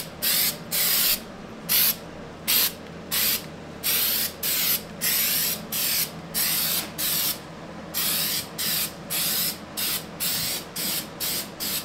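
Aerosol can of undercoating sprayed in about twenty short hissing bursts, each under a second long, coming quicker toward the end.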